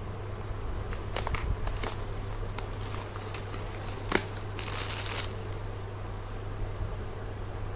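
Packaging being handled and crinkled, with scattered sharp clicks and a brief burst of crinkling about five seconds in, over a steady low hum.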